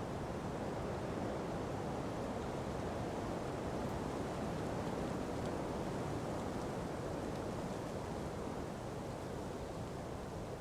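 Ocean breeze blowing through palm trees: a steady rushing that swells a little and eases off near the end.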